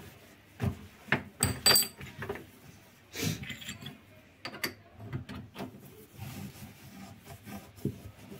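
Cloth rubbing and wiping across a gas hob's enamel top, with irregular knocks and a short metallic clink about one and a half seconds in.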